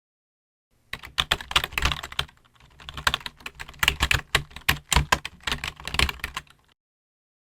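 Typing on a computer keyboard: a run of quick, uneven keystroke clicks that starts about a second in and stops shortly before the end.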